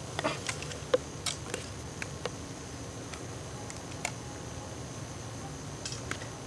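Steady camcorder hiss and hum with a faint, steady high whine, broken by a handful of small, sharp clicks, bunched in the first two seconds and again near the end.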